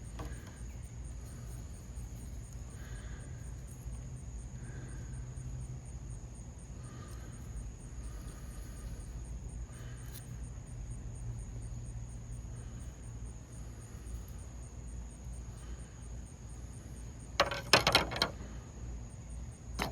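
Insects trilling steadily at night, a thin high continuous tone with a fast even pulsing above it. About three-quarters of the way through, a brief loud rattle of clicks from handling something close by.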